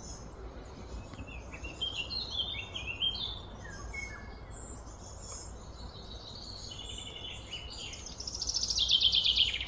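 Several birds singing and chirping over a steady low background rumble. Near the end one bird breaks into a loud, fast run of repeated falling notes.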